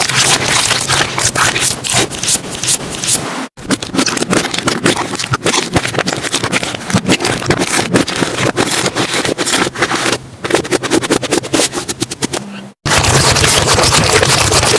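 Slime being squeezed and worked by hand, making a dense run of wet crackles, clicks and pops. It cuts off abruptly twice, about three and a half seconds in and near the end.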